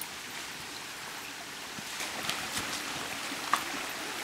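Shallow stream trickling over rocks: a steady hiss of running water, with a few light clicks and one sharper knock about three and a half seconds in.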